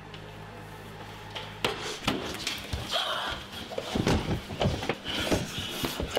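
Steady low hum, then from about a second and a half in a rapid, irregular run of knocks and bangs.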